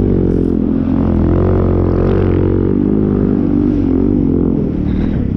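Snowmobile engine running hard while plowing through deep powder snow, its pitch rising and falling with the throttle.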